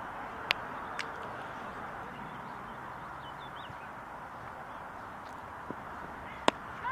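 Steady outdoor background noise with a few faint bird chirps, broken by short sharp knocks about half a second and a second in, and a louder knock near the end.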